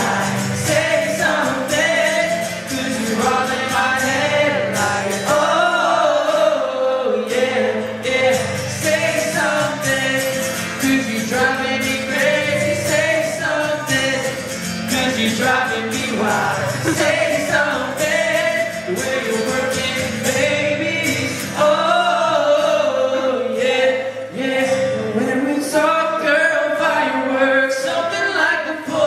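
A pop song with a singing voice over a backing band, performed live during a sound check.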